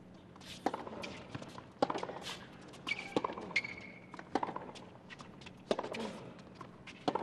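Tennis rally on a hard court: about six sharp racquet strikes on the ball, roughly 1.3 s apart, with lighter ball bounces and a few short squeaks between them.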